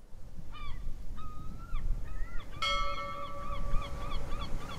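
Birds calling repeatedly in short rising-and-falling honks over a low rumble. About halfway through, a steady held tone sets in under the calls.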